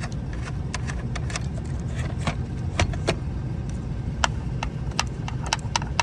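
Irregular sharp plastic clicks and taps from a hand pressing on the fuses and plastic housing of a Ford Super Duty battery junction box while seating it, over a steady low rumble.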